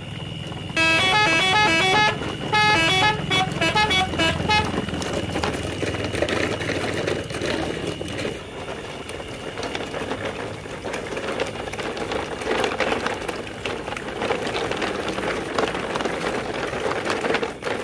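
A horn plays a short tune of stepping notes for about four seconds. Then plastic toy dump-truck wheels rattle and crunch steadily over dirt and gravel, with a faint steady high tone underneath.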